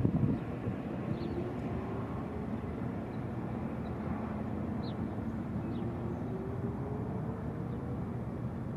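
Whelen WPS-2909 electronic siren sounding its wail faintly, one slow rising glide in pitch, under a steady low outdoor rumble. A few short high chirps are heard now and then.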